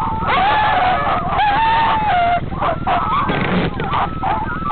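A team of huskies yelping and howling together, many wavering high cries overlapping and breaking off, over a steady low rumble.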